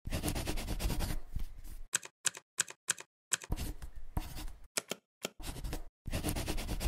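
Typing on a computer keyboard: several quick flurries of key clicks, with single sharp clicks in the gaps between them.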